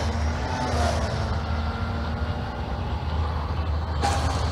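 Joysway Bullet V3 RC speed boat's electric motor whining as the boat runs away across the water, the whine fading after the first second and coming back briefly near the end, over a steady low rumble.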